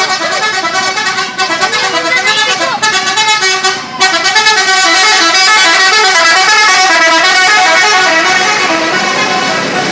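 Telolet multi-tone bus horn on a Subur Jaya SHD bus, playing a tune of stepping notes. The notes come short and choppy for about four seconds, then turn into a louder, unbroken run of changing pitches.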